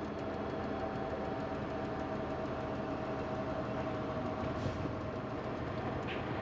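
Semi-truck running down the highway, heard from inside the cab: a steady engine drone and road noise with a constant hum.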